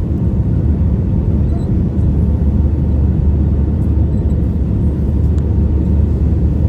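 Steady low rumble of an Airbus A320 heard from inside the cabin: engine and airflow noise during the landing, with no rise or fall in pitch.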